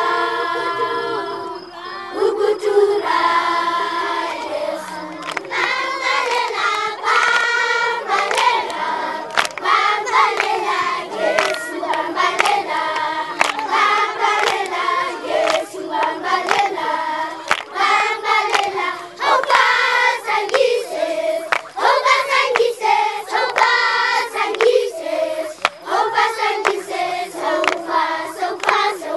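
A group of voices singing together in chorus, with steady rhythmic hand-clapping keeping time.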